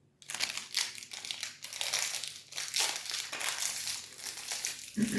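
Plastic wrapper of a Grenade protein bar being crinkled and torn open, a dense irregular crackling that starts about a quarter second in and keeps going.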